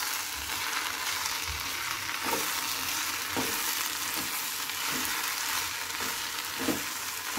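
Brinjal and onion sizzling in oil in a metal pan while a steel spoon stirs them, with a few light scrapes of the spoon against the pan. The freshly added turmeric and chilli powder is being fried until its raw smell is gone.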